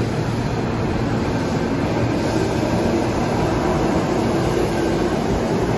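Hankyu 1000 series electric commuter train running past the platform: a steady rolling rumble of wheels and running gear.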